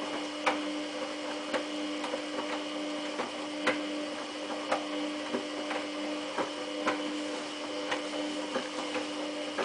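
Samsung WF8804RPA washing machine running its prewash with a sleeping bag in the drum: a steady motor hum with short ticks and knocks about once a second as the drum turns.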